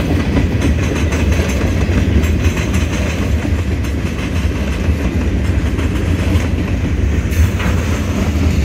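Freight train's gondola cars rolling past at close range: a steady, loud, low rumble of steel wheels on rail, with the clickety-clack of wheels over the track joints.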